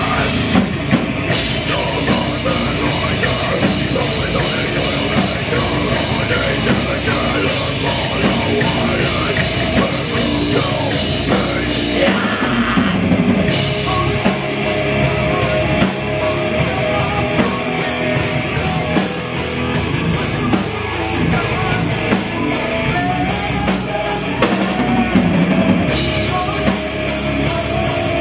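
Live heavy metal band playing loud: electric guitar, bass guitar and a drum kit, with the cymbals breaking off briefly about a second in, around the middle and near the end.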